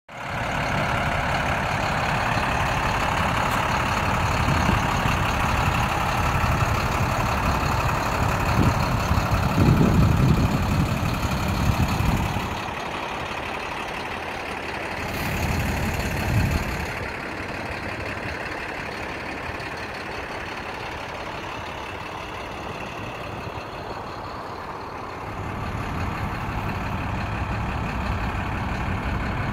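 A parked International 4300 refrigerated box truck running steadily. Heavier low rumbles come about ten and sixteen seconds in, and the sound drops a little after about twelve seconds.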